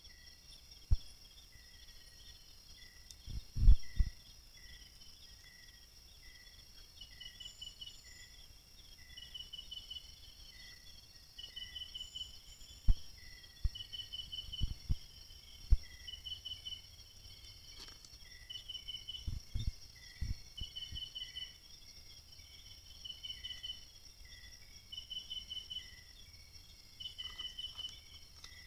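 Night insects calling in a steady chorus: a continuous high trill with a shorter pulsed trill repeating about every two seconds. Scattered low thumps and knocks break through now and then, the loudest about four seconds in and again around thirteen to fifteen and twenty seconds.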